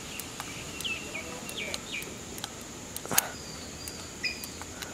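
Front fork damping adjuster of a Honda XR250 being turned clockwise toward its seated stop, giving faint clicks about every half second, with one sharper click about three seconds in. Birds chirp and a steady high insect drone runs underneath.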